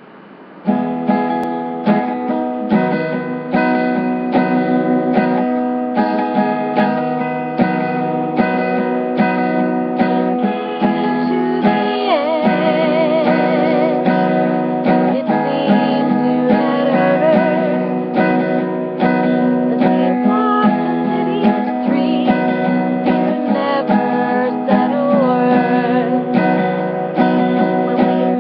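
Steel-string acoustic guitar strummed in a steady rhythm, starting about a second in, with a woman singing along over it from about halfway through.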